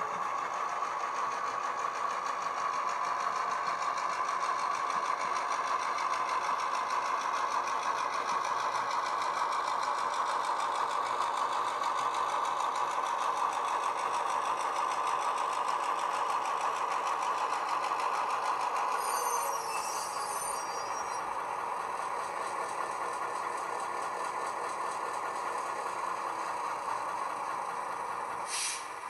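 Model Class 141 diesel locomotive's LokSound V5 DCC sound decoder playing a diesel engine sound through its sugar cube and bass speakers as the loco runs: a steady engine drone that eases down a little about two-thirds through. A brief hiss comes at the very end.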